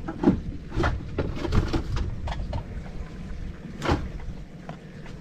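Irregular knocks and clicks of a mud crab and a measuring stick being handled as the crab is measured, with the loudest knock about four seconds in.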